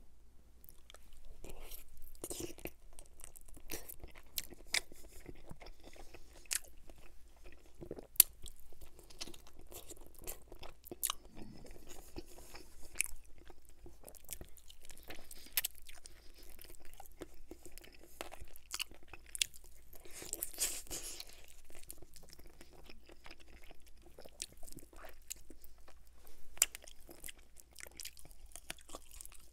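Close-miked eating sounds of a person chewing and biting into a sauced buffalo chicken wing, pulling the meat off the bone, with many short, irregular wet clicks from the mouth.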